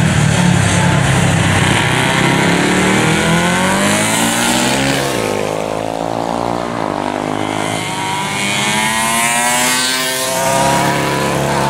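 Several pre-1970 racing motorcycles ride past one after another, engines revving up as they accelerate out of the corner. About five seconds in, one engine's pitch drops steeply as it goes by, and more engines rise in pitch near the end.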